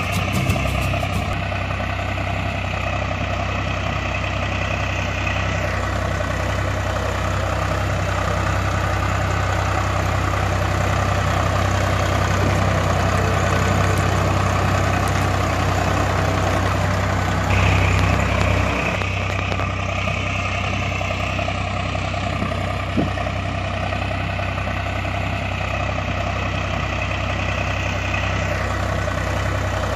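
Diesel tractor engine idling with a steady, low, even throb, dubbed over the picture as a sound effect. It swells briefly a little past the middle.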